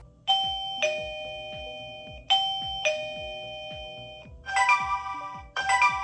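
Lindo plug-in wireless doorbell chime playing its tones: a two-note ding-dong, high then low, twice, then a different, busier multi-note chime tone twice near the end.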